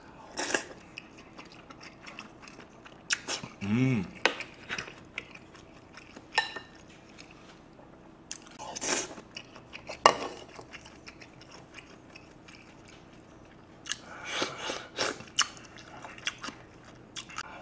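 Close-miked eating: mouthfuls of beef-rib soup with rice and vegetable soondae being chewed, with scattered clicks of a spoon against the bowls and a brief hum of the voice about four seconds in. A quicker run of clicks and smacks comes near the end.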